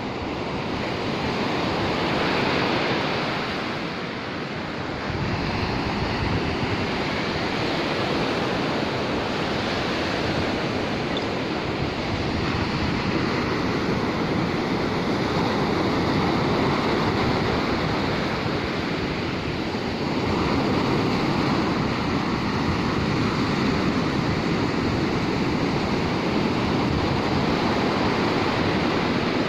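Ocean surf: waves breaking and washing up a sandy beach, a steady rushing that swells and eases with each wave.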